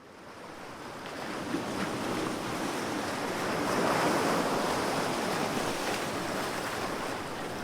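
Sea waves breaking on the shore in a continuous rushing surf, fading in at the start and swelling to a broad crest about four seconds in before easing slightly.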